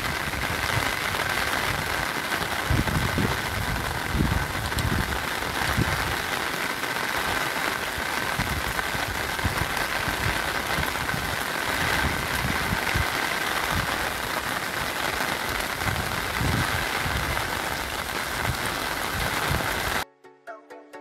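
Steady rain falling on a wet cobbled street, with low rumbles now and then and a faint steady high tone underneath. About a second before the end it cuts to electronic music.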